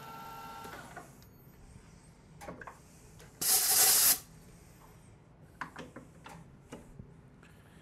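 Metal lathe running with a steady whine that stops just under a second in. After a few light clicks comes a short hissing blast of compressed air from a blow gun, lasting under a second and the loudest sound here. More light clicks and knocks of tooling follow.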